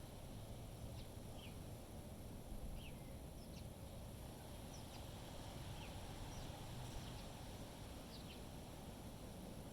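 Small birds giving short, high chirps, roughly one a second, over a steady low rumble of wind on the microphone.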